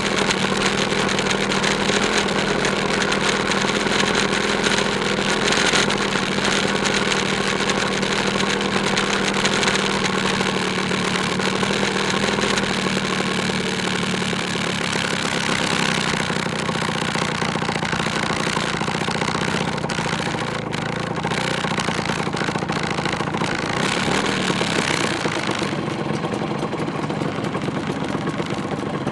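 Two-stroke scooter engines running steadily as a group of vintage scooters rides along at low speed.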